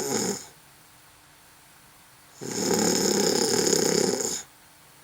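Snoring: one snore trails off in the first half second, then after about two seconds of quiet a second snore lasting about two seconds.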